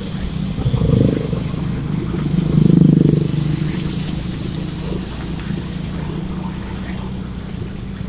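Motor scooter engines running steadily while riding along a rough road, with road and wind noise. A louder swell of engine noise comes about three seconds in, and a smaller one about a second in.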